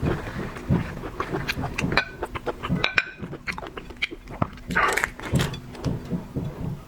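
Close-up eating sounds of a person eating seafood: chewing and wet mouth noises, with many short, irregular clicks and smacks.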